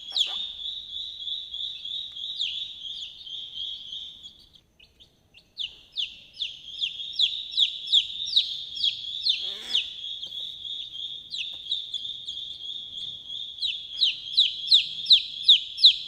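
Chicks peeping over and over: short, high calls, each falling in pitch, about two or three a second, with a pause of about a second near the middle.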